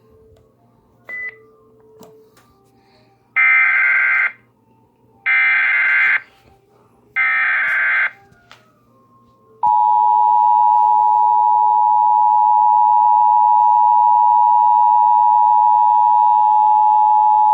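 Emergency Alert System header: three bursts of SAME digital data tones, each about a second long and about two seconds apart. About ten seconds in, the loud steady two-tone EAS attention signal starts and holds, marking the start of a new alert.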